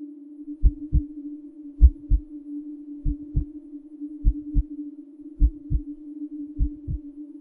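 Slow heartbeat sound effect: six double thumps, each pair about a second and a quarter after the last, over a steady low droning tone.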